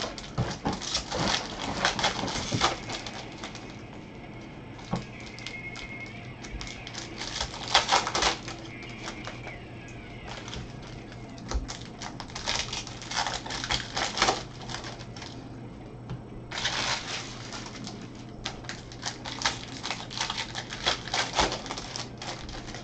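Foil wrappers of Bowman baseball card packs crinkling and tearing open, in bursts of crackling with short quieter gaps between, over a faint steady low hum.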